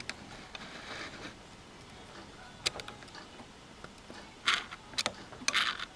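A few sharp clicks and two short scraping rustles of objects being handled close to the microphone.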